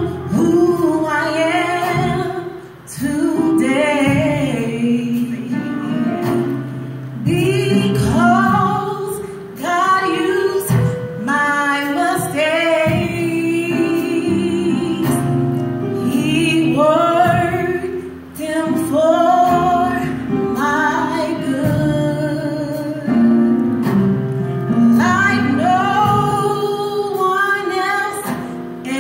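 Women singing a gospel song through microphones, with steady low notes sustained underneath the voices.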